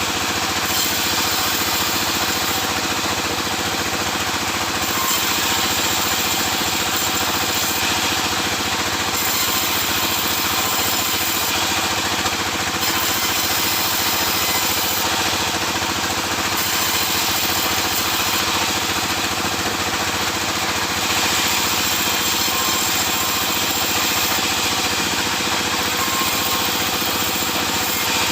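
Sawmill machinery running steadily: a continuous machine drone with the dense noise of the saw, its higher hiss shifting every few seconds.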